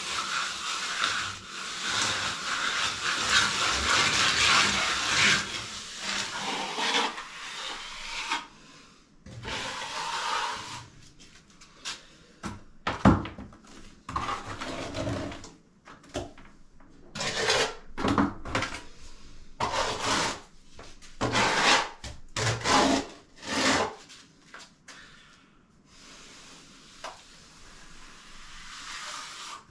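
Sponge float rubbing over freshly applied cement render to fine down the surface. It scrubs steadily for the first several seconds, then breaks into separate strokes, and goes quieter over the last few seconds.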